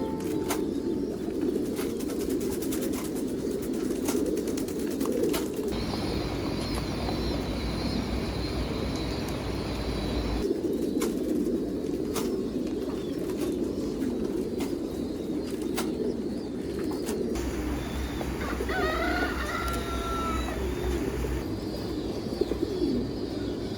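Many pigeons cooing continuously together, with a few higher-pitched calls about two-thirds of the way through.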